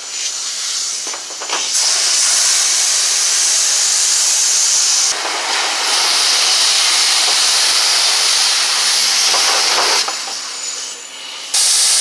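Self-service car wash high-pressure wand spraying water onto a seatbelt and car door, a steady hiss. It starts about two seconds in, falters briefly midway, stops near the end and starts again just before the close.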